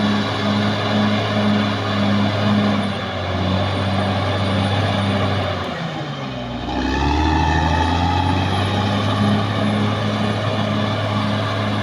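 Caterpillar D6R XL bulldozer's diesel engine running hard, with a steady rhythmic pulse about two to three times a second. About six seconds in, the engine pitch drops sharply, then climbs back up.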